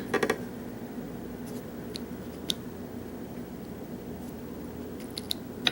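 Light metallic clicks and taps of tweezers handling small brass lock pins and springs: a quick cluster at the start, a few faint ticks in the middle and another cluster near the end, over a steady low hum.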